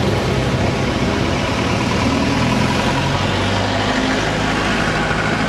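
Road vehicle's engine running at low, steady speed while driving through town traffic, its pitch shifting slightly, over road and traffic noise.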